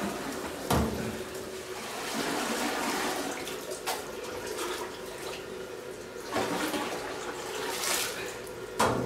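Thick sake mash (moromi) sloshing and splashing as it is scooped and poured with stainless steel pails and ladles, with a few sharp knocks spread through it.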